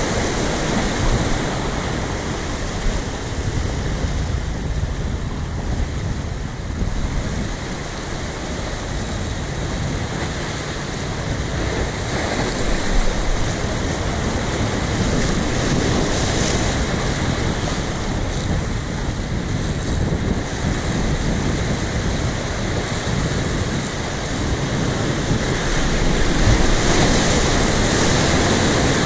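Sea waves breaking and washing over shoreline rocks as a continuous surf rush, swelling louder as a bigger wave crashes in near the end.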